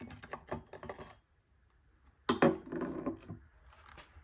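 Metal clicks and clatter as the chainsaw's bar and chain are worked off the saw, with a loud knock a little over two seconds in followed by about a second of rattling.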